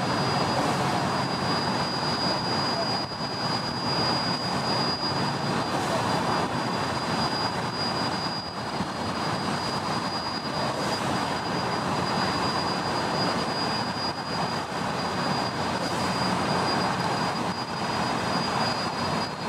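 Polson Logging Company No. 2 steam locomotive idling: a steady hiss of steam with a thin, high, unchanging tone held over it.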